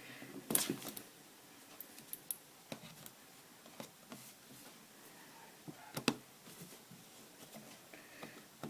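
Scattered small clicks and knocks of scissors and a cardboard box being handled while getting ready to cut the box open, with the loudest knocks about half a second in and about six seconds in.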